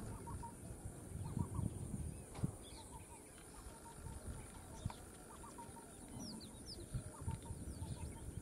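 Birds calling in short repeated chirps and clucks, in little groups of two to four notes, over a steady high insect drone, with irregular low thuds and rumble underneath.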